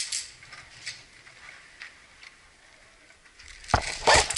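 Soft footsteps and gear rustle, then near the end an airsoft rifle firing a few shots in quick succession on semi-auto, sharp cracks in a small plywood-walled room.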